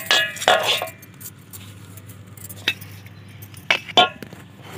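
Metal hand trowel scraping and clinking against a metal basin while scooping rice-husk potting mix, then a few sharp metallic clinks near the end.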